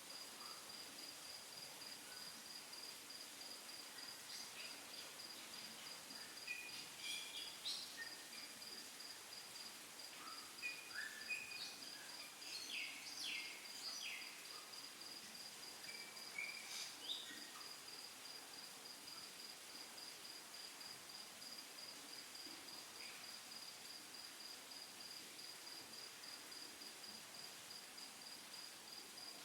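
A cricket chirping steadily in a high, rapidly pulsing trill over faint room noise, with a few short higher chirps or squeaks scattered through the first half.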